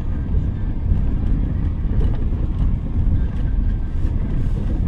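Cabin noise of a 2023 Toyota Rush GR Sport automatic driving along: a steady low rumble of its 1.5-litre four-cylinder engine and tyre noise heard from inside the car.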